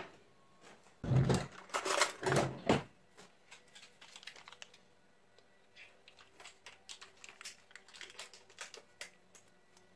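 A metal frying pan clattering onto the hob, a few loud knocks between about one and three seconds in, followed by light scattered clicks and taps of a metal utensil taking butter.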